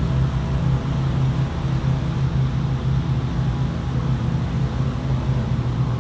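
A steady low rumbling drone with an even level throughout and no separate events.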